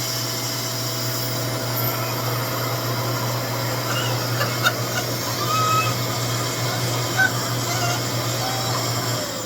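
RevAir reverse-air hair dryer running steadily on its low-heat setting, its suction motor pulling hair into the tube, with a couple of small clicks. Near the end it is switched off and the motor winds down with a falling whine.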